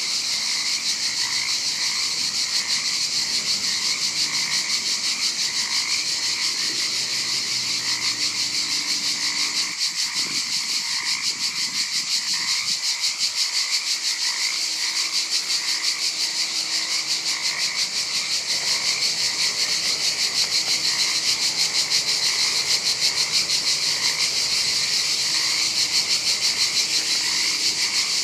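Garden chorus of frogs and insects: a continuous high, fast-pulsing insect trill with frogs croaking over it in short repeated calls.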